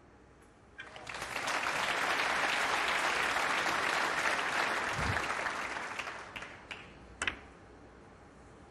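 Snooker crowd applauding a difficult pot of the blue. The applause swells up about a second in and fades out over the next five seconds. A single sharp click comes near the end.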